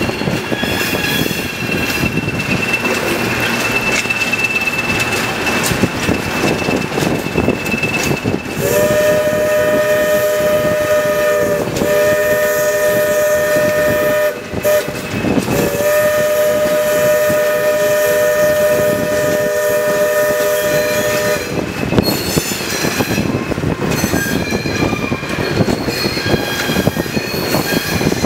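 Alco S2 diesel switcher locomotive running with its train, with a thin high squeal in the first few seconds. From about nine seconds in, its air horn sounds three blasts, the last and longest lasting about six seconds.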